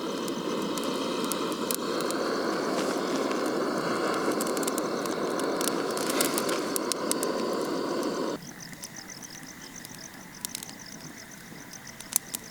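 A steady rushing noise that cuts off suddenly about eight seconds in, with scattered light crackling clicks of a campfire throughout.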